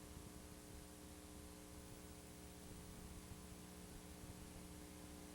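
Near silence: a faint steady electrical hum over a light hiss.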